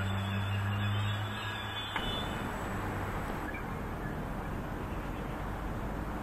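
Vivalto double-deck electric commuter train pulling away, a steady low electric hum that fades a little, then cuts off suddenly about two seconds in. After the cut there is only a steady even outdoor hiss.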